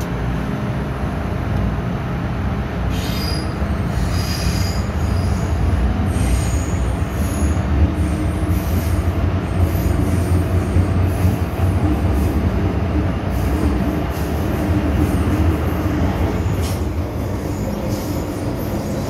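MTR M-Train heard from inside the car as it pulls out of a station and runs on: a steady, loud low rumble of wheels on rail, with high wheel squeals, clearest from about three to eight seconds in.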